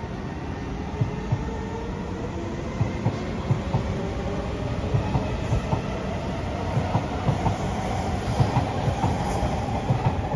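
SMRT C151 metro train accelerating away from the station on an elevated track: a steady rumble, a motor whine that rises slowly in pitch as it picks up speed, and wheels clicking over the rail joints more and more often.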